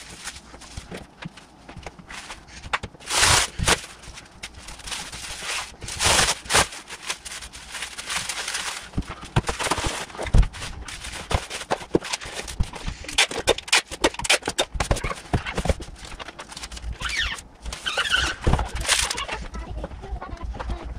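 Plastic bubble wrap being pulled from a roll and handled for packing laptops: irregular crinkling and rustling, with scattered light knocks.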